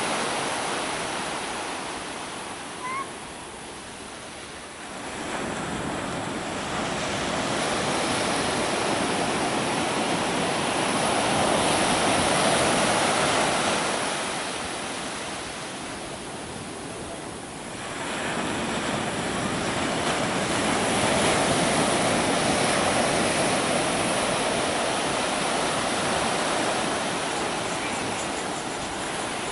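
Sea surf: waves breaking and washing up the shore, the rush of water swelling and ebbing in two long surges, each building over several seconds and then falling away.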